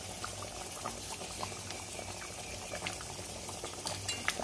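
Thick curry gravy boiling in a steel kadai: a steady bubbling with many small pops scattered through it.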